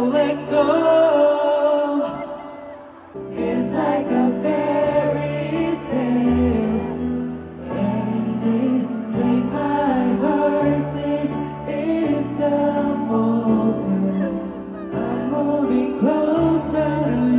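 Live concert music: a male singer singing a slow song into a handheld microphone over an amplified backing track of sustained low notes.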